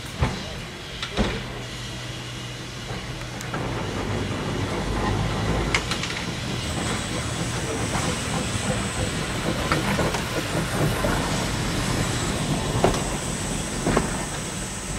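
Vintage electric tram, Cardiff City Tramways car 131, rolling slowly past on a curve: a low steady hum and the rumble of steel wheels on rail, which swells a few seconds in as the car draws close. Sharp clacks as the wheels cross rail joints and the points, the loudest near the start, about a second in, and near the end.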